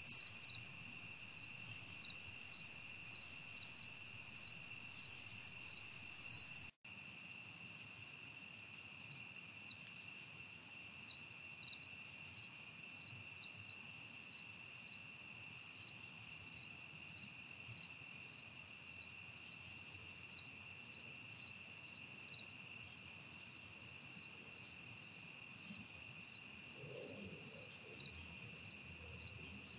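Night-singing insects: one trilling steadily, and another chirping in short, regular pulses about one and a half times a second over it.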